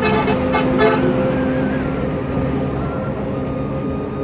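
Bus engine running steadily, heard from inside the crowded cabin, with a quick run of horn toots in the first second.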